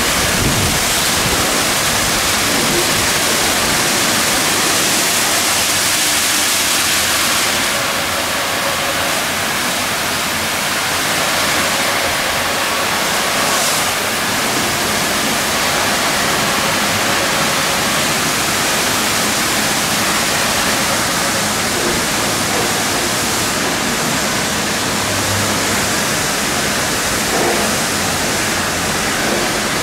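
Ceccato Hydrus Tech rollover car wash working over a van: rotating wash brushes and water spray make a loud, steady rushing hiss, which softens slightly about seven seconds in.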